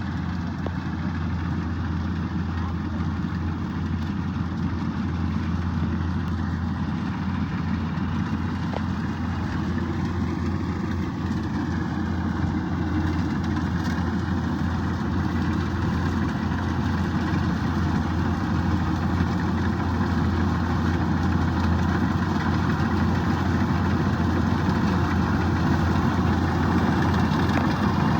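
Kubota DC-105X combine harvester's diesel engine running steadily with a low drone, growing slightly louder near the end.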